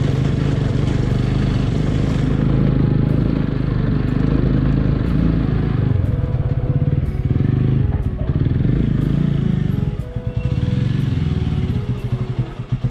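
Motorcycle engine running under way on a rough dirt road. About ten seconds in the throttle eases off and the engine drops to low revs, running in uneven pulses near the end as the bike pulls up.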